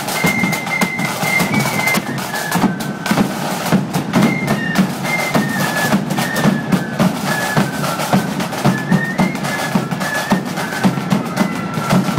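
Flute band playing a march: many flutes in unison carry a high melody over a steady beat of bass drums and snare drums.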